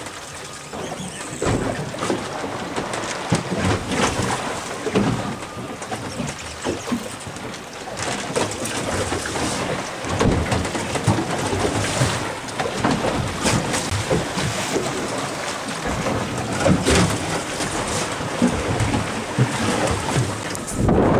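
Wind rushing over the microphone on an open boat at sea, with choppy waves splashing and slapping irregularly against the hull.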